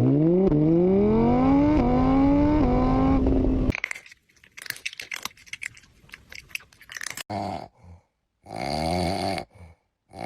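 Car engine accelerating hard through several gear changes: its pitch climbs, dips at each shift and climbs again, then cuts off after a few seconds. A scraping clatter follows, then two short wavering cries near the end.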